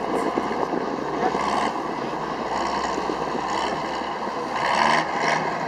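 Combine harvester's engine running as the machine drives slowly across a stubble field, a steady mechanical noise with a brief louder rush about five seconds in.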